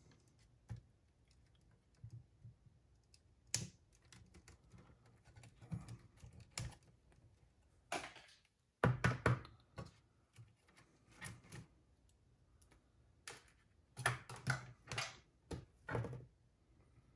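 Irregular clicks and light knocks of hands and tools working on the Akai GX9 cassette deck as a cable tie on its wiring is undone, coming in small clusters with a sharp single click a few seconds in.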